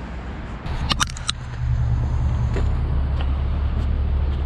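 A low, steady rumble that grows stronger partway through, with a quick cluster of sharp clicks about a second in.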